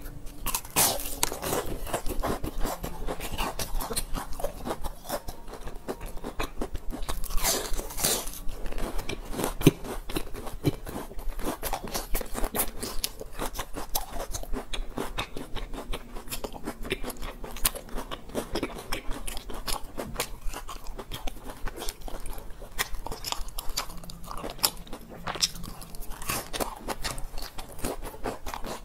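Crisp deep-fried purple rice cakes being bitten and chewed close to a clip-on microphone: a dense run of crackling crunches, with a few louder bites.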